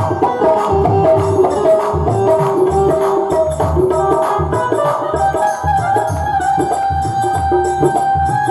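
Devotional Krishna bhajan music: a held, steady melody line over a rhythmic hand-drum pattern, with no singing heard.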